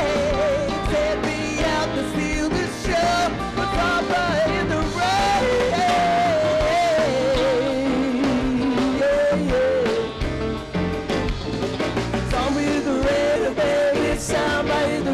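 Live rock band playing a samba song, with keyboards, electric guitar and drums under a wavering lead melody line.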